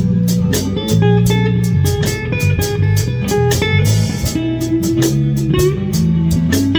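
Live instrumental rock jam: a drum kit keeping a steady beat under electric guitar, bass guitar and a synth keyboard playing together.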